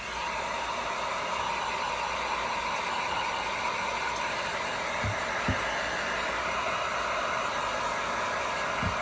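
Steady blowing hiss of a small electric blower, switching on abruptly at the start, with a few soft low knocks about five seconds in and near the end.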